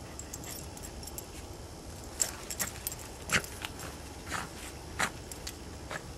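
A dog burrowing and rolling in fresh snow: irregular short crunches and scuffs, starting about two seconds in.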